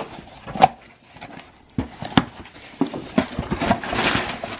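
Cardboard box being handled and opened by hand: scattered knocks and taps on the cardboard, then a longer scratchy rustle near the end as the box comes open.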